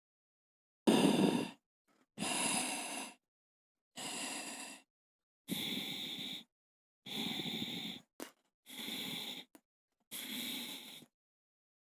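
A sleeping person snoring: about seven snoring breaths, each under a second long, coming roughly every second and a half with silence between them.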